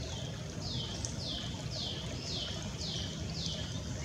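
A songbird singing a steady series of clear downslurred whistles, about two a second, over a low background rumble.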